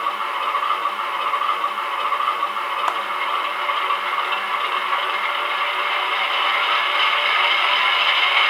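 An ESU LokSound Essential sound decoder in a model EMD GP9 diesel plays the prime mover's start-up and engine sound through the locomotive's small onboard speaker. The engine sound is steady and slowly grows louder, with one faint click about three seconds in.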